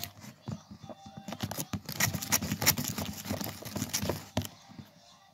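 A spoon stirring thick glue slime in a clear bowl as it is being activated: a dense run of irregular sticky clicks, busiest in the middle and thinning out near the end.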